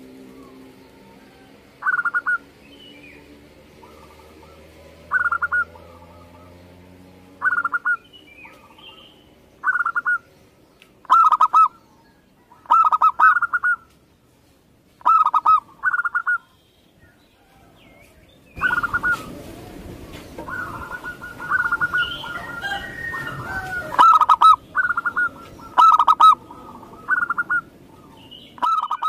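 Zebra dove (perkutut) song: short cooing phrases repeated every one to two seconds, growing denser and overlapping after about two-thirds of the way through. A steady low hum runs under the first several seconds, and a rushing noise joins the calls for a few seconds in the last third.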